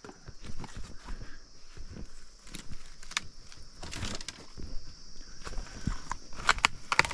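Footsteps crunching through undergrowth, with irregular sharp cracks and snaps, over a steady high-pitched drone.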